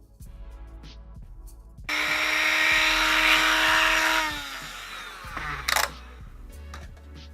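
A power drill runs at a steady speed for about two and a half seconds, then winds down with falling pitch. A short sharp burst of noise follows, over background music.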